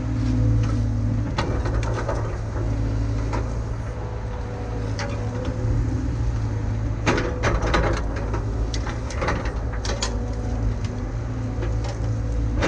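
Heavy diesel engine of a CAT excavator running steadily at work, with scattered knocks and clanks from the machine digging.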